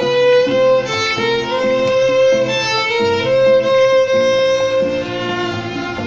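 Violin played with the bow, a melody of long held notes that move from one pitch to the next.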